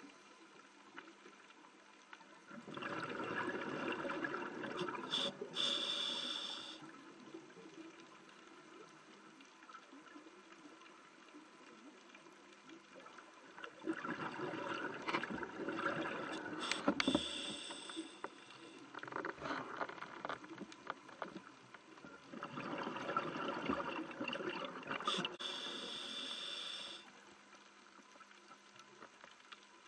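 Scuba regulator exhaust bubbles underwater: a diver breathing out in three long bubbling bursts about ten seconds apart, with quieter spells between breaths.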